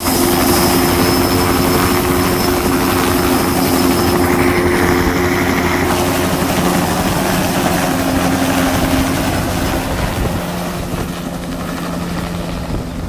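Bell OH-58 helicopter running: its turboshaft engine whines steadily over the fast beat of the main rotor. About ten seconds in, the rotor beat and whine weaken, leaving a steadier hum.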